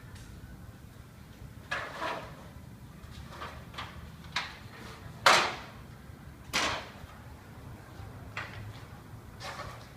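A series of irregular knocks and bangs, about nine in ten seconds, each brief with a short scraping tail; the loudest comes about five seconds in. A faint low hum runs underneath.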